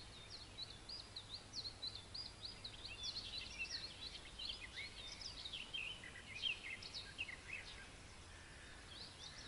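Faint songbird chirping and whistling, short quick notes repeated in runs, with a low steady rumble underneath.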